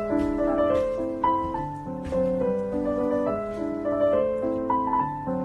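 Background piano music: a gentle melody over chords that change about every half second.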